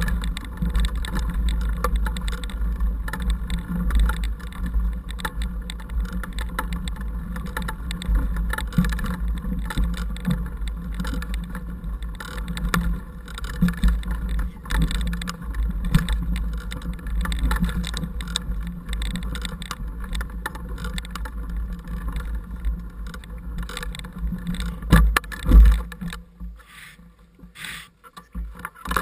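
Mountain bike riding a rough dirt trail, heard through a handlebar-mounted action camera: a steady wind rumble with constant rattling and clicking from the bike and camera mount. A couple of loud knocks near the end, then it goes much quieter as the bike stops.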